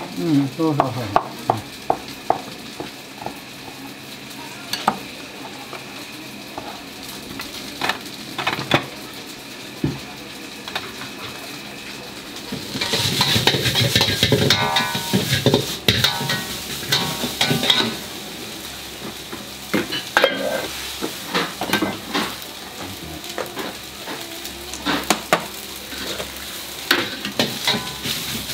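Rice being stir-fried in a wok over a gas flame: a steady sizzle, with the ladle knocking and scraping against the wok. The sizzle gets much louder about thirteen seconds in. Before that there are only scattered knocks over a steady kitchen hiss.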